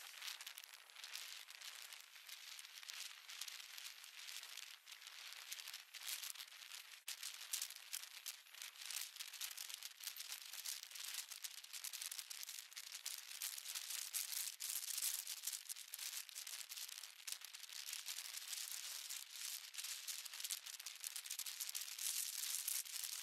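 Faint, thin crackling hiss of wind and road rush picked up by a moving rider's camera, with no low rumble.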